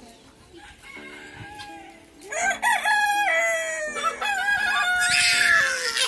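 Rooster crowing: one long, loud crow starts about two seconds in, turns harsh and raspy near the end, and falls in pitch as it fades.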